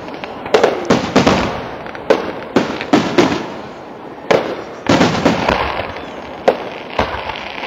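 Aerial firework shells bursting overhead: about ten sharp bangs at irregular intervals, each trailing off in a rolling rumble.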